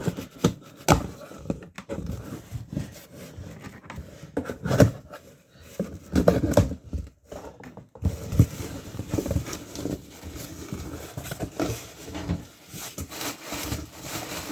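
A large cardboard parcel being opened by hand: irregular knocks, scrapes and rustling of the cardboard and packing, with the sharpest knocks about five and eight seconds in.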